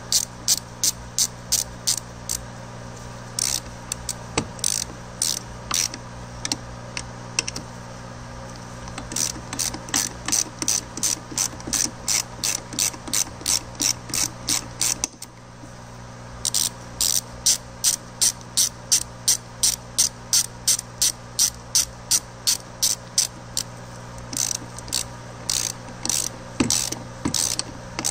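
Hand ratchet wrench clicking as a socket on an extension turns a bolt on the transmission case. The clicks come in quick runs of about four a second, with short pauses between runs.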